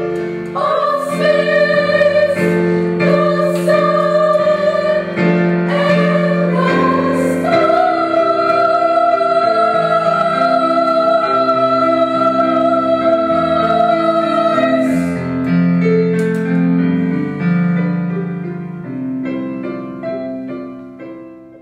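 Children's choir singing with piano accompaniment, holding one long note in the middle. Then the voices stop and the piano plays on, fading away near the end.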